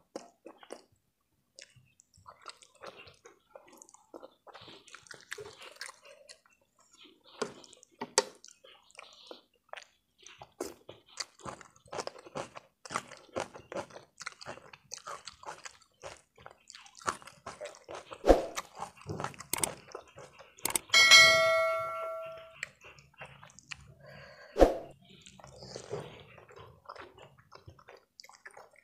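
Eating sounds of instant noodles: slurping, chewing and wet mouth clicks, with a wooden fork clicking on the plate and two sharp knocks, one a little past halfway and one near the end. About two-thirds of the way through, a bell-like ring sounds for about a second.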